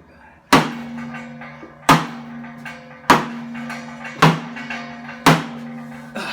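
Five heavy hammer blows on an old water heater's steel tank, about one every second and a bit. Each strike leaves the tank ringing with a low steady hum.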